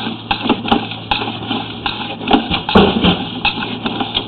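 Sewer inspection camera on its push cable being fed down a 4-inch ABS sewer line: irregular knocks and rattles, the loudest a little under three seconds in, over a steady low hum.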